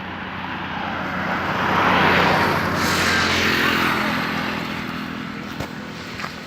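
A motor vehicle driving past, growing louder to a peak about two seconds in, then fading as its engine note drops in pitch.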